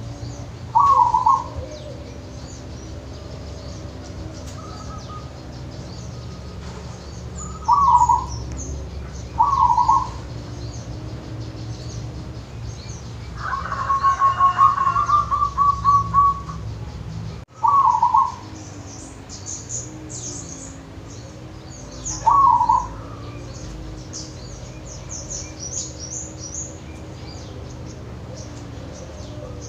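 Caged zebra dove (perkutut) cooing: short loud notes every few seconds, and a longer run of rapid staccato coos midway. Fainter high-pitched chirping joins in the second half, over a low steady hum.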